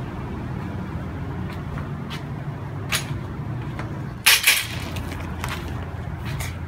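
Suzuki GSX1100S Katana's air-cooled inline-four engine idling steadily. A small click comes about three seconds in, and two loud, sharp clacks just after four seconds.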